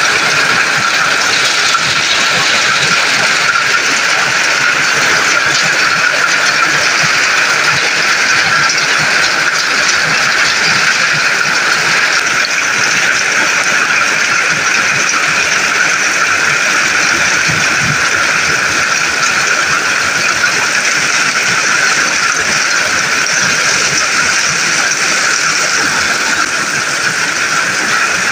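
Heavy hailstorm with rain: hail and rain pouring down and pelting the ground, a dense, loud, steady patter that does not let up.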